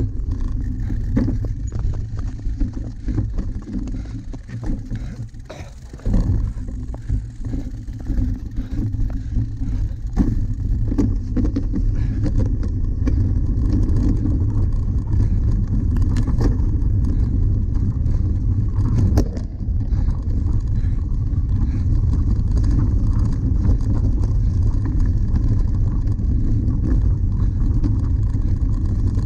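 Steady rumble of wind on the microphone and knobby cyclocross tyres rolling over rough, bumpy grass, broken by frequent clatters and knocks as the bike jolts over the ground.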